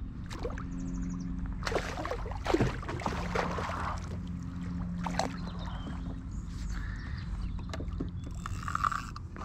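A small wels catfish thrashing and splashing at the water's surface beside a kayak as it is played on a rod. The splashes come in irregular bursts, the heaviest a couple of seconds in.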